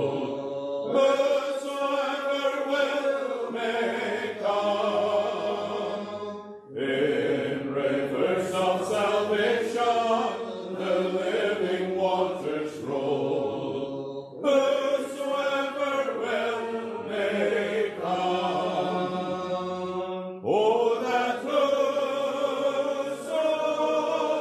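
Congregation singing a gospel hymn together, in long phrases with short breaks for breath between them.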